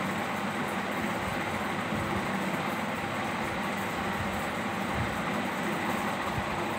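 Steady background noise, an even hiss with a low rumble and no distinct events.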